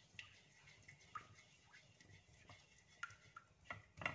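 Faint, irregular scrapes and light ticks, a few a second, of a silicone spatula stirring a liquid mixture in a non-stick pan.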